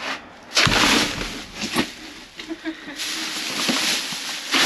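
Clear plastic trash bags crinkling and rustling loudly as they are stepped on and handled inside a metal dumpster, with a thump about half a second in and another loud burst of crinkling near the end.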